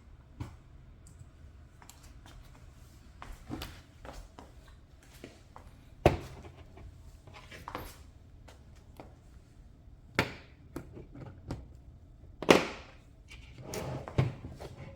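Scattered clicks and knocks of small plastic parts and tools being handled and set down while an RC car is taken apart, with a few louder knocks about six, ten and twelve seconds in.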